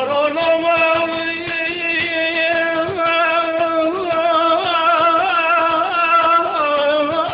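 Kurdish male singer holding one long sung note in a folk-style song, decorated with small wavering turns, with instrumental accompaniment behind; the note steps down slightly near the end.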